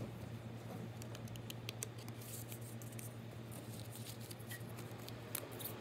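Light clicks, taps and rustles of hands handling a metal nail-stamping plate and a cardboard product box. The clicks come in a quick cluster about a second in and again near the end.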